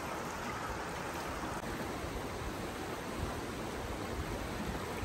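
Shallow river running over stones: a steady rushing of water.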